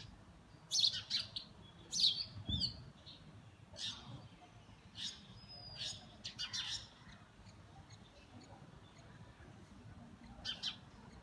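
Oriental magpie-robins giving short, sharp chirps and harsh call notes while two of them face off. The calls come in clusters through the first seven seconds, then break off and return briefly near the end.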